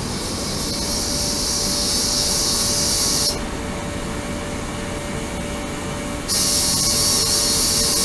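Ultrasonic cleaning tank full of water running, with steady churning water noise and a high hiss from the ultrasonic oscillation. The hiss cuts out about three seconds in and comes back about three seconds later.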